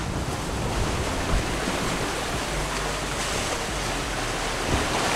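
Steady rush of water and wind around a catamaran under way at sea.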